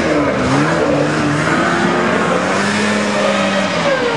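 Snowmobile engines running on the ice, their pitch rising and falling as the throttle changes, over a steady rush of noise.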